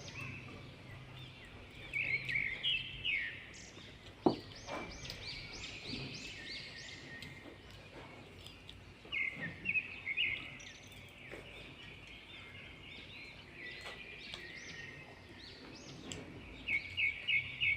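Birds chirping in quick runs of short, high notes, with one sharp click about four seconds in.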